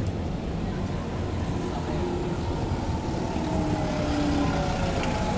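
Street traffic with a double-decker bus's engine running close by: a steady low rumble, with a faint whine sliding slowly down in pitch in the second half.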